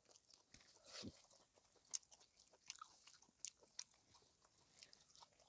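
Near silence with faint sounds of people eating with their hands: soft chewing and a scattering of small clicks and taps of food and fingers on plastic plates.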